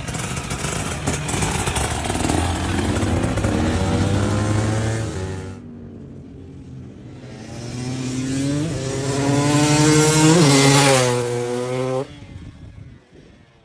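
Two-stroke supermoto motorcycle engine revving hard as it passes: the first pass fades away about five seconds in, then the bike comes back, rising in pitch through gear changes to its loudest point, and the sound cuts off suddenly near the end.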